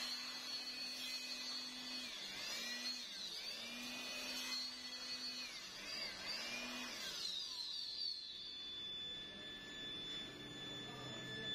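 Handheld electric air blower running in several short bursts, its motor whine rising and falling as the trigger is pulled and released, blowing loose sand out of a foundry sand mould for a brake drum. The blower stops about seven seconds in, leaving a steady thin high tone.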